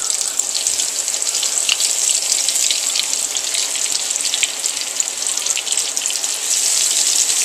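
Hush puppy batter deep frying in hot cooking oil: a steady sizzle full of small crackling pops.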